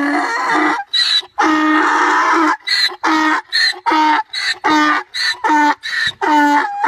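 Donkey braying: a long drawn note about a second and a half in, then quick repeated hee-haws, about two or three a second.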